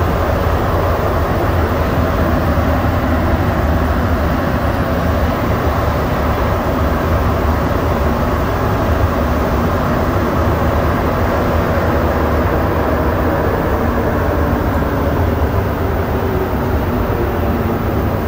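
Rubber-tyred Montreal Metro train running through a tunnel, heard from inside the car: a steady, loud rumble and rolling noise.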